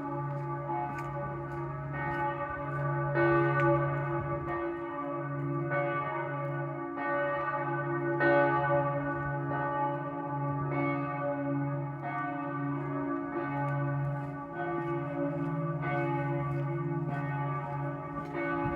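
Several church bells pealing together, with new strikes about once a second over the long, overlapping hum of the larger bells.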